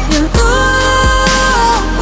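Pop song playing: a long held note that bends down near its end, over a kick-drum beat.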